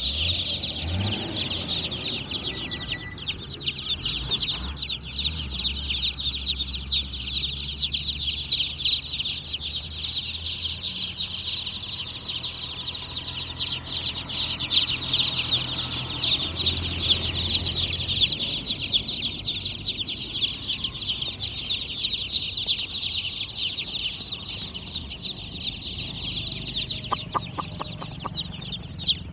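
A brood of baby chicks peeping continuously, many high-pitched chirps overlapping into a steady chorus.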